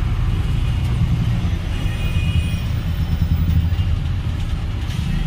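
Heavy truck's diesel engine running at low revs, heard from inside the cab: a steady low rumble as the truck creeps through heavy traffic.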